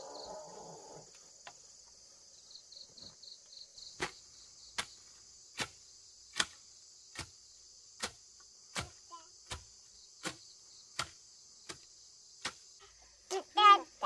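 Steady high buzzing of crickets. From about four seconds in come regular sharp chopping strikes, roughly one every 0.8 seconds, from a hand tool cutting into grass and earth while the ground is cleared. A short, loud voice sounds near the end.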